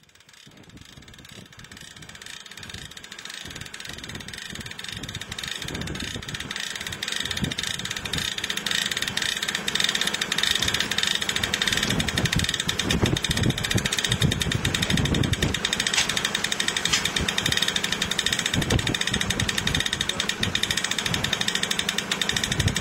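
Car engine running steadily as it tows a fully water-ballasted boat on its trailer up a slipway, fading in over the first several seconds. A few low thumps come about halfway through.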